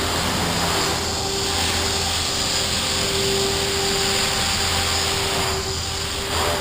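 Align T-REX 500 electric radio-controlled helicopter in flight: a steady whine from the motor and rotors over a rushing rotor noise.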